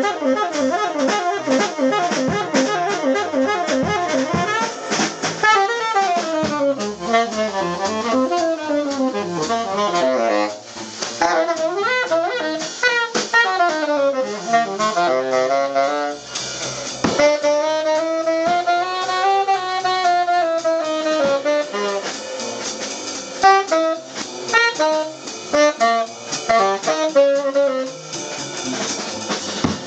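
Jazz combo playing: a tenor saxophone improvises a melodic line over drum kit and upright double bass, holding one long note in the middle of the phrase.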